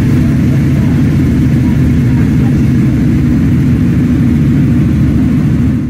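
Kramer 690 race motorcycle's single-cylinder engine idling steadily, loud and close.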